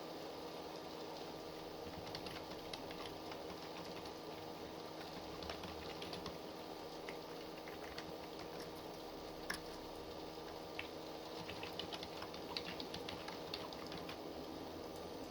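Typing on a computer keyboard: irregular runs of key clicks in short bursts with pauses between, one key strike louder than the rest about two thirds of the way in, over a steady background hiss.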